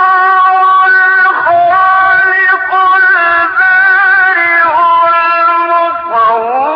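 Male reciter chanting Quran recitation (tajwid) in maqam Nahawand, unaccompanied: long held notes joined by quick ornamented turns in pitch.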